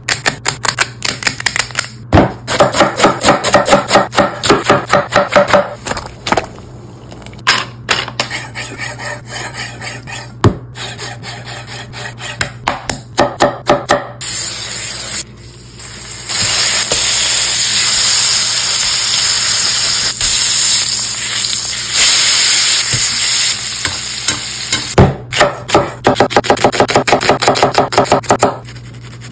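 Kitchen knife chopping fast and evenly on a wooden cutting board, then food sizzling in a hot pan for about ten seconds, then fast chopping again near the end.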